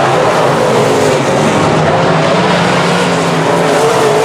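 Several semi-late model race cars' V8 engines running at racing speed, their pitches wavering up and down as they circle the track.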